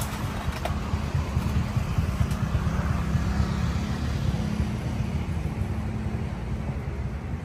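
Outdoor traffic noise: a steady low rumble, with a passing vehicle swelling and fading around the middle.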